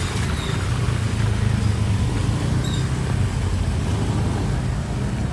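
Street traffic: a motor vehicle's engine running close by, a low steady rumble that is loudest about one to three seconds in.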